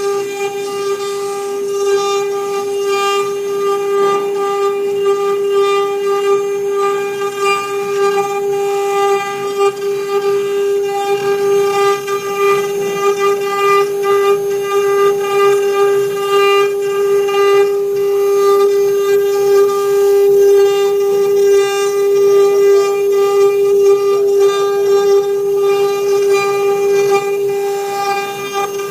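CNC wood router spindle running and cutting wood, a steady high whine that holds one pitch throughout, over a rough, chattering cutting noise.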